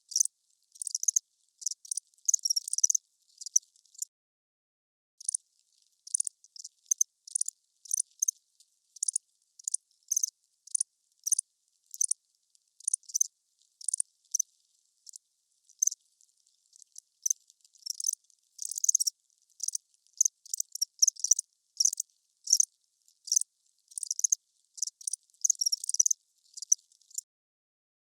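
Crickets chirping: short, high-pitched chirps repeated about twice a second, with a pause about four seconds in and denser runs of chirps in the middle and toward the end.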